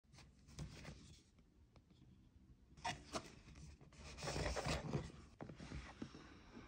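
Cardboard vape-kit box being handled: a few light taps and knocks, then a rustling scrape about four to five seconds in as the outer cardboard sleeve slides off the inner box.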